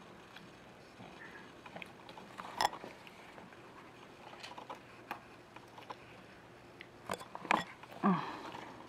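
A few sparse light clicks and taps of small hard objects being handled, the loudest about seven and a half seconds in, followed by a short vocal sound falling in pitch near the end.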